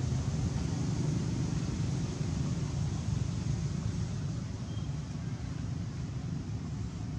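Steady low rumble with a fainter hiss above it, outdoor background noise with no distinct events or tones.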